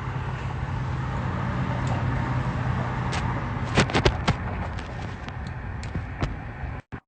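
A vehicle engine idling with a steady low hum, with a quick run of sharp cracks about four seconds in and a few fainter ones after.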